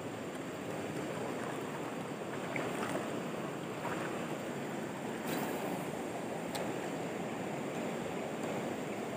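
Steady rush of a jungle river flowing over rocks, with two faint clicks about five and six and a half seconds in.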